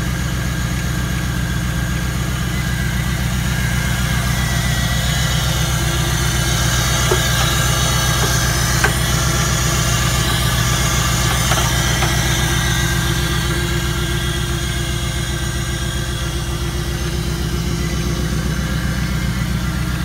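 1994 Camaro Z28's LT1 5.7-litre V8 idling steadily, with a fast even pulse and a few faint ticks in the middle.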